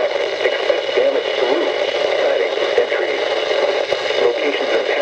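Weather radio receiver hissing with steady static, a faint, indistinct broadcast voice underneath.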